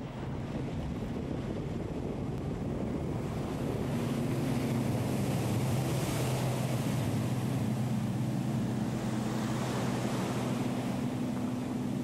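A boat engine drones steadily under rushing water and wind buffeting the microphone as a fishing boat runs fast through choppy sea. The engine drone grows louder about four seconds in.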